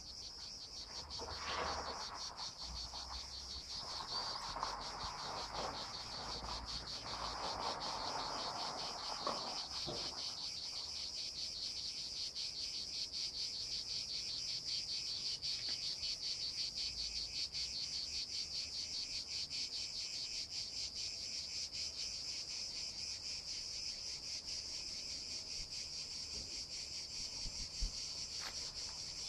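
Dense chorus of insects shrilling steadily: a high, fast-pulsing buzz that never lets up. Fainter mid-pitched sounds come and go in the first ten seconds, and there is a single sharp click near the end.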